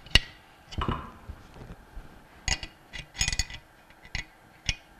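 Sharp metallic clicks and clinks at irregular intervals, the loudest right at the start and a quick cluster about three seconds in, from a socket ratchet wrench turning the forcing screw of a two-jaw bearing puller as it is tightened to draw a bearing off a pump shaft.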